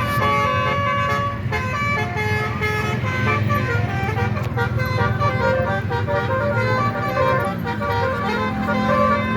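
Bus 'telolet' horn, a set of musical air horns, playing a stepping multi-note melody over the low rumble of traffic.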